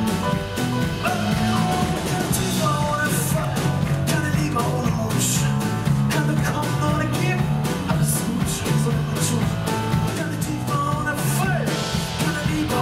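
Live band of grand piano, drum kit and electric bass playing a song, steady and continuous, with cymbal strokes on top.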